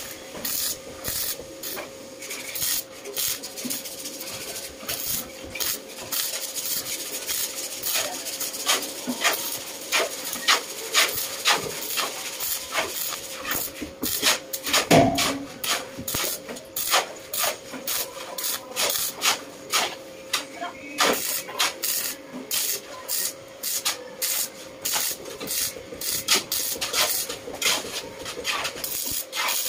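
A hand tool rasping against steel in irregular short strokes, over a faint steady hum, with one louder thump about halfway through.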